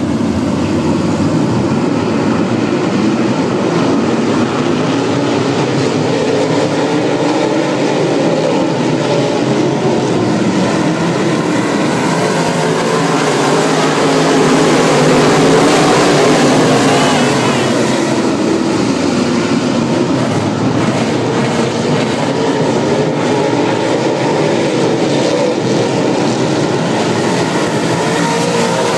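A field of UMP dirt modified race cars running their V8 engines at racing speed: a loud, continuous din of many engines, rising and falling in pitch as the drivers lift and get back on the throttle through the turns. It swells a little louder about halfway through.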